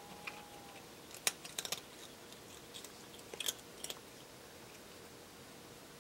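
Cat crunching dry kibble: quiet, irregular crackling crunches in short clusters, the busiest about a second and a half in and again about three and a half seconds in.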